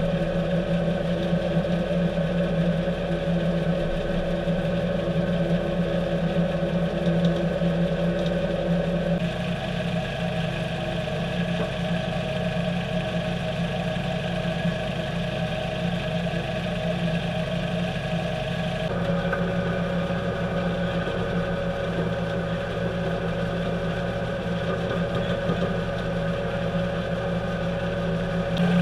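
Heavy tow truck diesel engines running steadily at raised speed to drive the winches as they drag a crashed dump truck off a ditch bank. The engine note shifts twice, about a third and two thirds of the way through.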